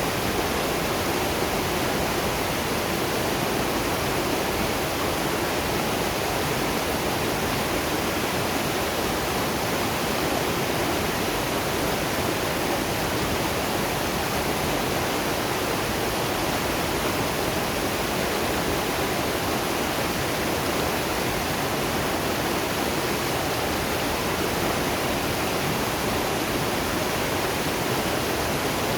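Waterfall running steadily: a constant rush of falling water with no breaks or changes.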